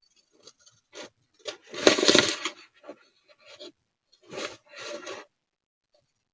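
Scissors cutting through printed paper tabs covered in clear tape, with the paper handled between cuts: a few separate bursts of cutting and rustling, the loudest about two seconds in and another pair near the middle-end.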